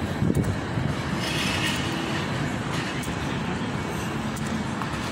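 Steady city street background noise: a low traffic rumble with no distinct event standing out.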